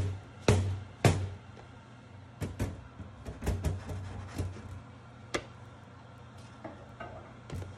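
Metal shokupan loaf tin banged down on the work surface right out of the oven: three sharp knocks about half a second apart, each with a low ring. This is the shock given to a fresh-baked loaf so it does not cave in. Softer knocks and clatter follow as the loaf is turned out of the tin onto a wire cooling rack.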